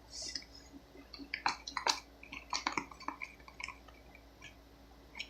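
Soft wet squishing and light clicks of a pencil stirring a 3-in-1 soap and baking soda mixture in a container. The mixture is not setting into slime.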